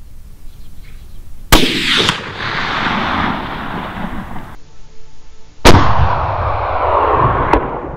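Two very loud rifle shots from a Steyr SSG 08 chambered in .308, about four seconds apart, each followed by a long rolling echo that dies away over about three seconds. A fainter crack follows each shot.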